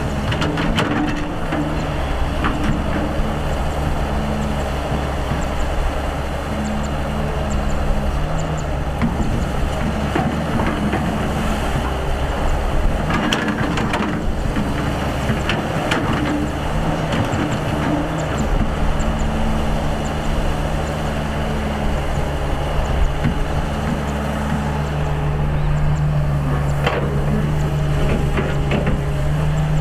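Excavator's diesel engine running under varying load, its pitch rising and falling as it works, with a few metallic knocks from the machine.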